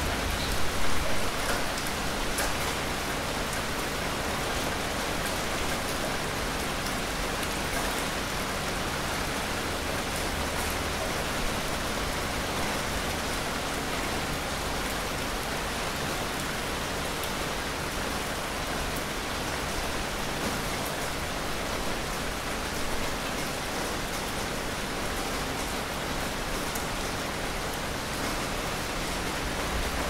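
Steady rain falling: an even hiss with scattered individual drops striking, briefly a little louder about a second in.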